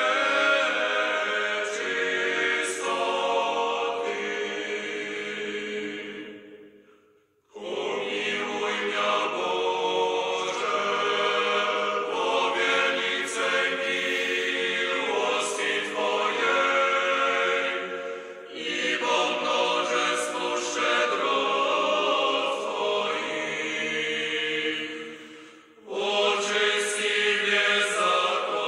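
A choir chanting in long, slowly moving held chords, a background music track. The phrases break off three times, dropping almost to silence about seven seconds in and again near the end.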